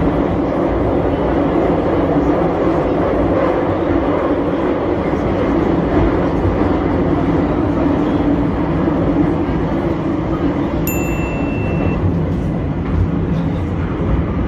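Metro train running through a tunnel, heard from inside the car as a steady loud rumble of wheels and motors. Near the end a short high beep sounds for about a second.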